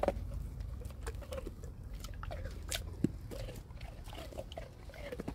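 A Dobermann chewing and crunching a piece of frozen watermelon, teeth biting through the ice in irregular crunches and clicks.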